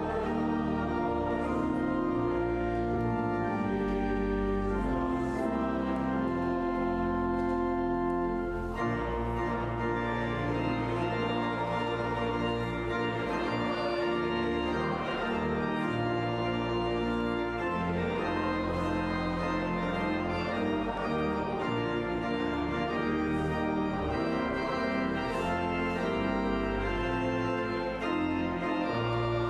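Church organ playing slow, sustained chords that change every few seconds.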